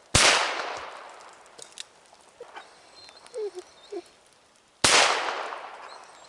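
Two shots from a nine-shot JC Higgins .22 Ranger revolver, about four and a half seconds apart, each echoing away over a second or so.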